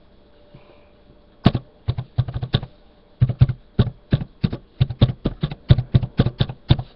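Typing on a laptop keyboard: irregular key clicks start about a second and a half in and run at a few per second, with a short pause partway through.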